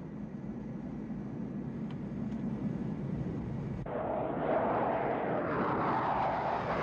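Film sound effects of a jet fighter in flight: a steady low jet rumble, then, at a sudden cut about four seconds in, a louder whooshing jet pass whose pitch sweeps and wavers.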